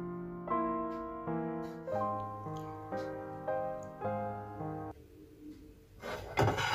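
Soft background piano music, single notes struck one after another, stopping about five seconds in. Near the end comes a short burst of clattering noise with a knock.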